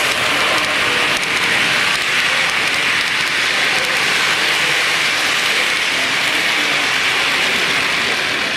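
Model freight train rolling past close by: a steady hiss of wagon wheels running on the track.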